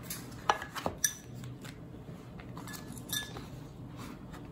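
Light clicks and clinks of kitchen items being handled on a counter: a plastic empanada press and utensils, with a few sharp taps about half a second and a second in and another near three seconds.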